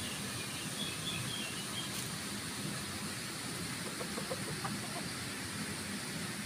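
A rooster giving a few soft, short clucks about four to five seconds in, over steady background hiss.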